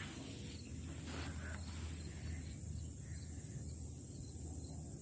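Outdoor ambience: a steady high-pitched hiss over a low hum, with a few faint rustles in the first two seconds.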